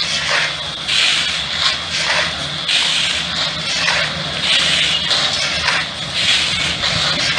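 Steel shovels scraping into a pile of crushed stone and flinging the gravel, a rough scrape-and-rattle repeating about once a second from several men working together.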